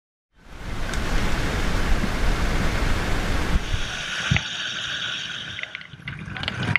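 Steady rush of wind and water aboard a boat under way, with a heavy low rumble that drops away about three and a half seconds in, leaving a thinner hiss.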